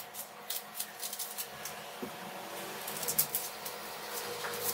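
Dry onion skins crackling and rustling as onions are peeled by hand, in scattered light crackles.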